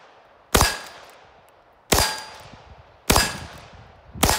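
Winchester Model 1894 lever-action rifle in .22 Magnum fired four times, about a second and a quarter apart. Each sharp crack trails off in echo.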